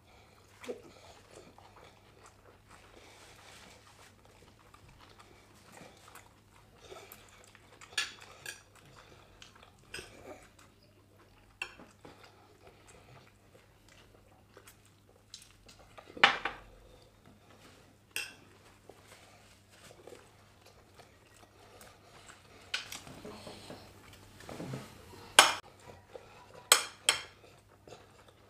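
Metal forks clinking and scraping on plates during a meal, scattered sharp clinks with quiet chewing between them, over a faint steady low hum.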